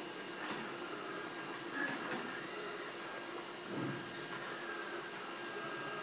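Small robot vacuum cleaner running with a steady whirring hum, broken by a few light knocks, the loudest about two seconds in, and a short swell just before four seconds.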